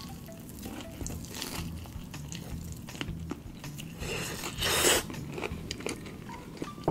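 Close-miked eating of crispy fried chicken: bites, crunches and wet chewing clicks, with one louder crunching burst about four and a half seconds in.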